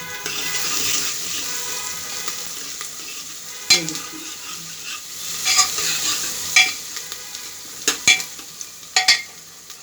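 Chopped onions sizzling in hot oil in a pressure cooker as they are stirred and fried toward golden brown. The stirring spoon knocks and scrapes against the pot once about a third of the way in, then several times in the second half.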